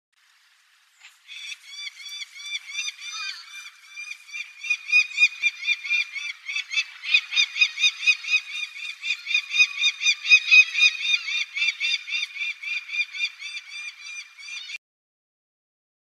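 Peregrine falcon calling: a long run of short, sharp, arched notes, about three or four a second, rising and falling in loudness and stopping abruptly near the end. It is the female's call, apparently begging the male for food at the nest cliff.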